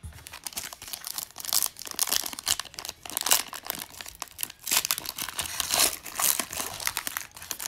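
Foil wrapper of a Panini Prizm Draft Picks trading card pack being torn open and crinkled by hand, a dense run of sharp crackles.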